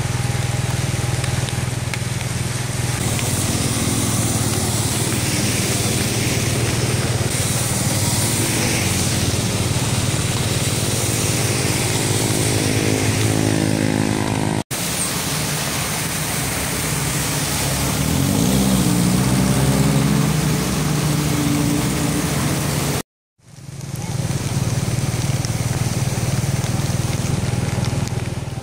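Motorcycles and cars driving through a flooded street in heavy rain, over a steady hiss of rain and splashing water. Motorcycle engines pass twice, each engine note climbing in pitch.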